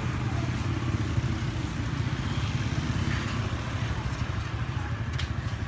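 Steady low rumbling background noise, engine-like, with a couple of faint clicks about five seconds in.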